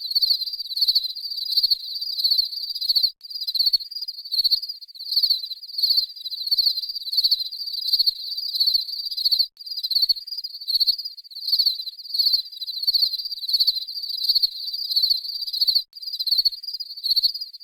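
Crickets chirping steadily: rapid pulsed chirps at one high pitch, repeating without pause except for a brief drop about every six seconds.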